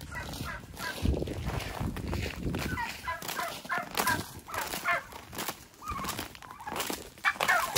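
White domestic turkeys gobbling repeatedly in short, quavering calls, over footsteps crunching on ice-crusted ground.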